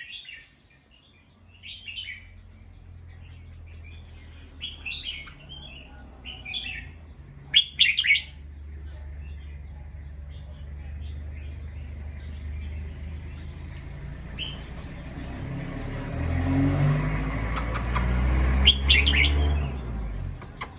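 Bulbul calling: bunches of short chirps, the loudest a pair of sharp calls about eight seconds in and another bunch near the end. Under it, a low rumble swells through the second half.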